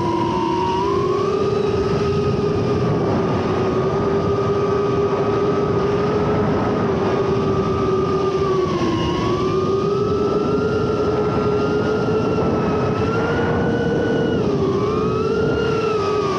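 FPV quadcopter's brushless motors and propellers whining steadily over a rush of noise. The pitch shifts with throttle, dipping briefly about halfway through and dipping and rising again near the end.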